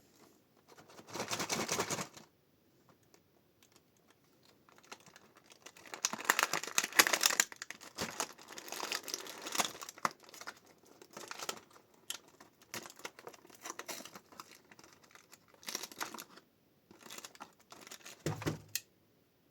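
Packaging of a Labubu blind box being opened: plastic or foil wrapping crinkling and tearing in irregular bursts, with sharp clicks and a low thump near the end.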